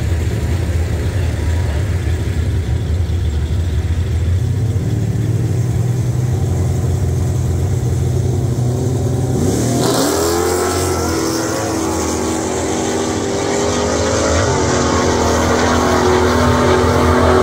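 Supercharged 392 (6.4 L) Hemi V8 of a RAM drag truck running steadily at the starting line. About ten seconds in, the sound changes to the truck at full throttle down the drag strip, its engine pitch climbing.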